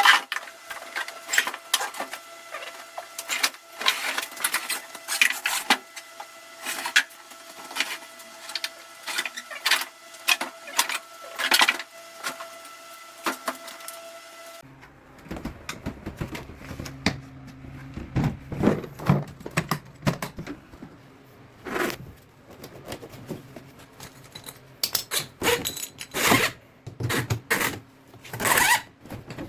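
Tools and metal parts being handled during air-conditioner installation work: irregular clicks, knocks and clatter. A steady hum runs under the first half and changes abruptly about halfway through.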